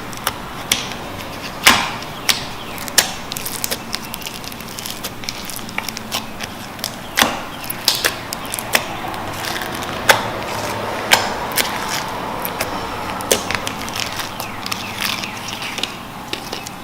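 Slime being squeezed and stretched by hand, with many sharp irregular pops and crackles over a steady squishing hiss.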